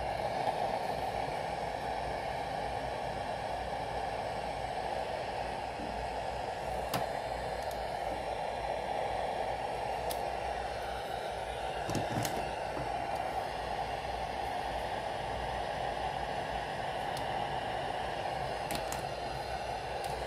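Steady static hiss from a Sanyo MW220K radio-cassette player's speaker, with a few faint clicks.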